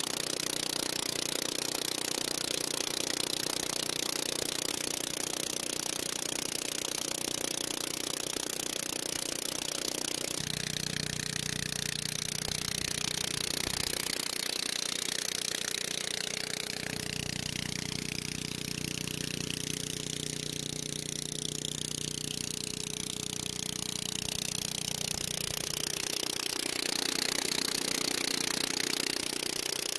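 Predator 301cc single-cylinder four-stroke engine running steadily at speed, driving a Little Wonder walk-behind blower's fan, with a loud rush of air blowing leaves. The tone of the engine and air shifts a few times but never drops out.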